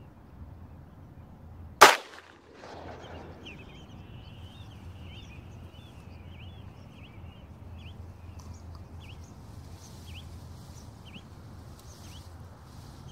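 A single shotgun shot about two seconds in, sharp and by far the loudest sound, with a short echo. After it come many short, high bird calls, crowded together at first and then coming one at a time.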